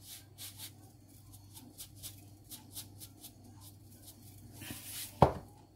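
Table salt shaken from a canister's pour spout into a split lemon being stuffed for preserved lemons, a run of short hisses about three a second. About five seconds in, a single sharp knock with a short ringing tone.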